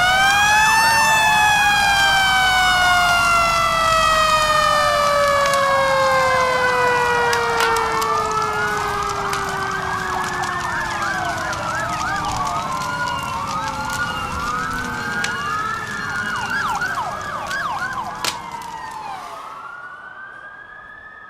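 Several fire truck sirens sounding together. One climbs sharply at the start and then falls slowly and steadily in pitch, while others wail up and down over it, with a faint crackle of fire underneath. The sound fades out near the end.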